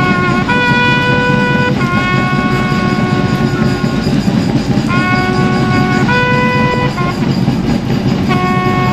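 Traditional guard band playing a flag salute: wind instruments sounding long held notes in two short phrases, with a brief break near the middle, over continuous drumming.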